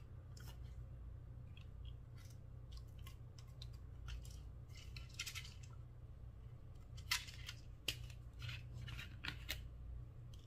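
Small plastic bottle of foam beads being handled, with light clicks and rattles as its screw cap is twisted off. Sharper clicks come about seven and eight seconds in.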